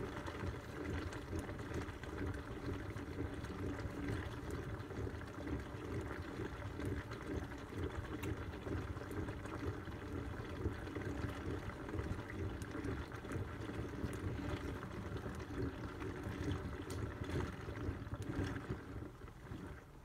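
Water sloshing and churning with laundry in the turning drum of a homemade toy washing machine during its rinse, a steady uneven swishing that quietens just before the end.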